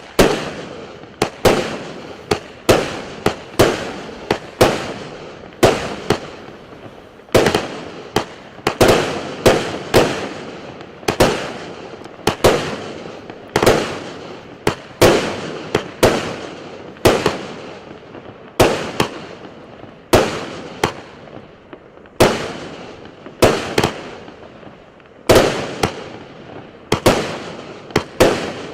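A 36-shot, 0.8-inch consumer fireworks cake firing in sequence: a sharp bang about once a second, each trailing off in a fading hiss of the burst.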